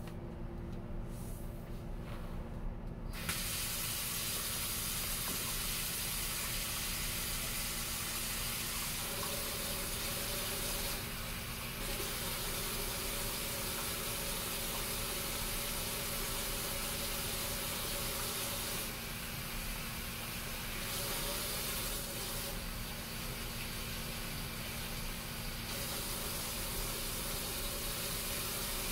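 Kitchen faucet running into a sink, switched on about three seconds in and shut off near the end, its splashing changing now and then as hands rub something under the stream.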